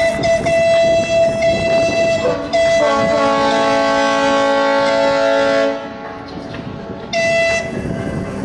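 Tugboat whistles blowing. A long blast on one steady pitch is followed by a louder, deeper horn sounding a chord of several tones for about three seconds, then a short toot near the end.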